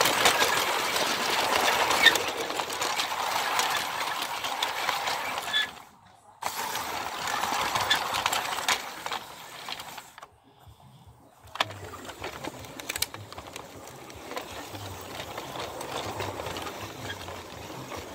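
G-scale model steam train running on its track: a steady mechanical whirr and rattle of the motor and wheels on the rails. It cuts out briefly about six seconds in and dies down about ten seconds in, leaving softer sound with scattered clicks.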